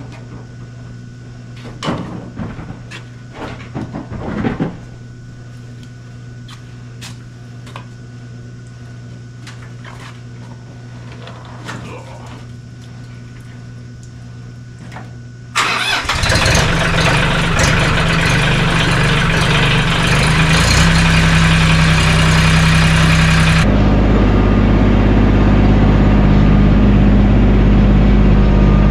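Mahindra 1626 tractor's three-cylinder diesel engine on a cold start after glow plug cycling. A few clicks and knocks come first; then about halfway through it cranks and catches suddenly and loudly, and near the end it settles into a steady low idle.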